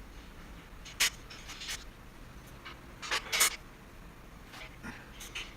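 Handling noise from assembling a steel motorcycle dolly: parts and bolts being fitted, with a sharp clink about a second in and a quick run of knocks around three seconds in, between light scraping and rubbing.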